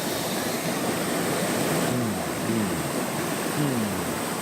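Steady rush of running stream water, with a few short falling pitched sounds around the middle.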